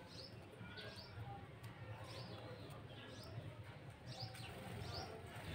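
Faint bird chirps: a series of short, high calls repeating every half second or so, over a low steady hum.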